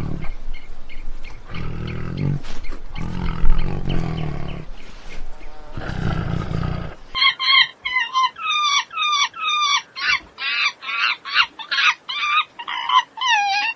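A large animal's deep, rough roaring calls in four long bouts, then about halfway through a fast series of short, high calls from another animal, several a second, each bending in pitch.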